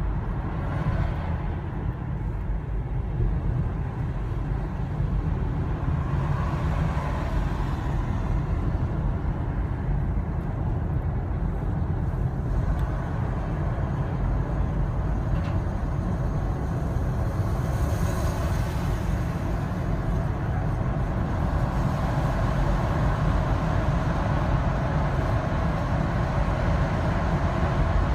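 Car driving at road speed, heard from inside the cabin: a steady low rumble of engine and tyres on the road. A faint hiss swells briefly about two-thirds of the way through.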